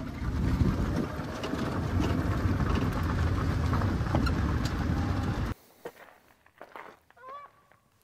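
Electric golf cart driving uphill on gravel: a heavy, steady rumble of tyres and wind on the microphone that cuts off suddenly about five and a half seconds in. Near the end a goose honks faintly once.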